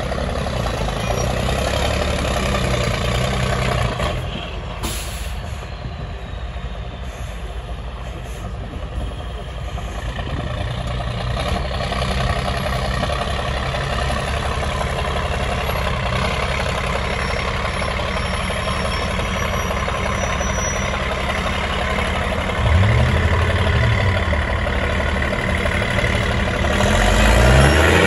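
Diesel engine of a MAN TGS 8x8 trial truck working steadily under load on a steep dirt climb, with a short hiss about five seconds in. The engine rises and falls in pitch a few seconds before the end, then revs up to its loudest right at the end.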